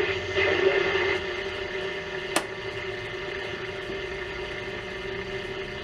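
Hallicrafters S-120 tube shortwave receiver playing through its speaker: steady static hiss with a constant low whine over a weak, jammed station. A single sharp click about two and a half seconds in.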